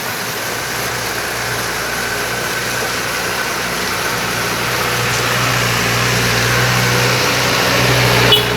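An engine running steadily and slowly growing louder over the continuous rush of river water, with a brief sharp click near the end.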